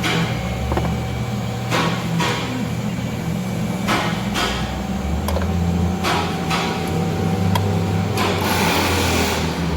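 Scattered sharp metallic clicks and knocks of hand work on the replacement AC compressor, over a steady low hum. A rushing hiss about eight seconds in lasts a second and a half.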